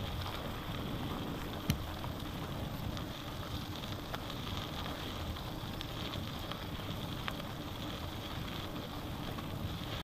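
Bicycle riding along a dirt forest track, picked up by a handlebar-mounted camera: steady tyre rolling noise with light rattling and a few small knocks, one a little under two seconds in.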